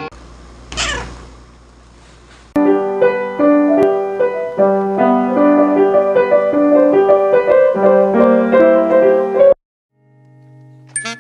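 A cat meows once, about a second in. Then piano music plays a busy run of notes and cuts off suddenly near the end.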